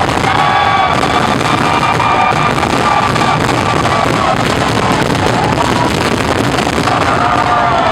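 Loud music playing through a fireworks display, mixed with the steady crackle of fireworks going off.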